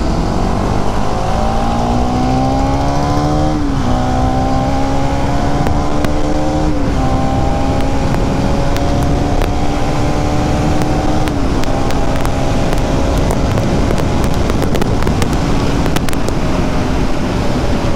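Bajaj Pulsar NS200's single-cylinder engine accelerating through the gears. Its pitch climbs, then drops sharply at upshifts about 4, 7 and 11 seconds in, and it settles into a steady cruise, over a constant rush of wind noise.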